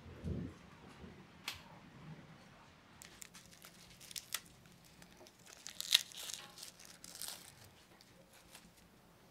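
A whole garlic bulb pulled apart by hand into cloves, its dry papery skin crackling and rustling in short snaps, loudest about halfway through. A soft thump comes just after the start.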